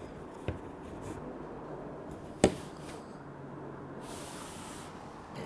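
Board game components being handled on a table: a light tap about half a second in, a sharper click about two and a half seconds in, and a short hiss near four seconds.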